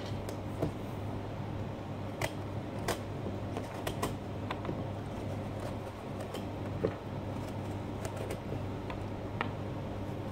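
Scattered light clicks, taps and scrapes of a carving knife and hands working on a pumpkin's skin, over a steady low hum.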